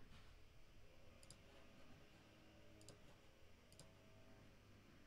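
Near silence: faint room tone with three brief, faint clicks.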